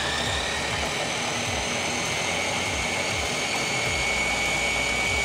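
Food processor motor running at full speed, puréeing cooked chicken livers into pâté. It makes a steady high whine over a constant churning.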